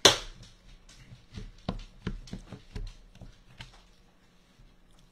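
Chef's knife chopping cooked chicken breast on a wooden cutting board: one sharp knock at the start, then a run of lighter knife taps, about three or four a second, thinning out after nearly four seconds.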